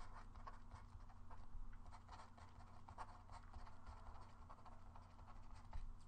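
Faint scratching and tapping of a stylus on a tablet screen, handwriting words in many quick short strokes, over a low steady hum.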